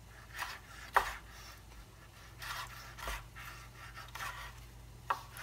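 Chef's knife dicing a tomato on a bamboo cutting board: about six irregular knocks of the blade on the wood, the loudest about a second in and near the end, with softer slicing and scraping between them.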